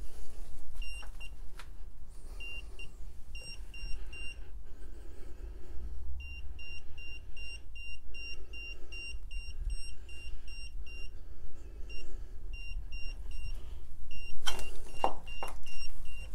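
Handheld electronic ghost-hunting meter beeping: short, high-pitched beeps in irregular runs of several a second, broken by short pauses, over a low wind rumble on the microphone. Loud handling rustles come near the end.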